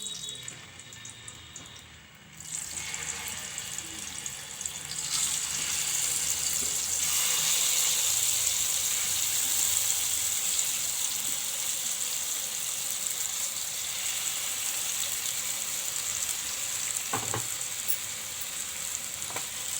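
Spice-stuffed brinjals (eggplants) sizzling in hot oil in a frying pan. The sizzle starts about two seconds in, grows louder over the next few seconds and then holds steady. There is one short knock near the end.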